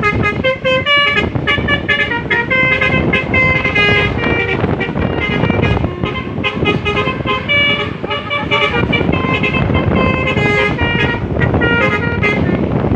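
A bus's basuri telolet horn played at length, a quick, unbroken run of horn notes jumping in pitch several times a second like a tune, over a low rumble.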